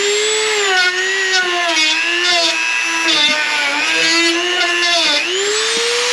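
Handheld electric grinding tool running against the fender metal to strip surface rust. Its motor whine dips in pitch again and again as it bites under load, with a scratchy crackle, and rises back to full speed about five seconds in as it eases off.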